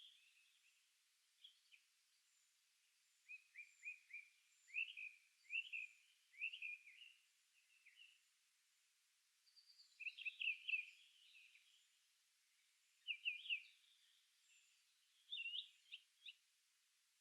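Wild songbirds singing: short phrases of quick, sliding chirps come in several bursts, about three to eight seconds in, around ten seconds, and near the end, with quiet gaps between them.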